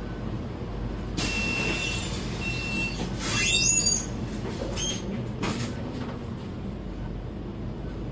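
Scania K320 articulated bus's engine running low and steady in the driver's cab while it creeps in stop-and-go traffic. A hiss starts about a second in, and a brief high squeal over a hiss around three to four seconds in is the loudest moment, followed by a couple of shorter hisses.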